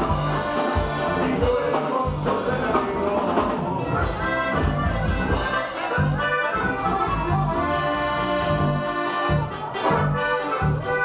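Live norteño band music: accordion lead over bajo sexto, electric bass and a drum kit keeping a regular beat.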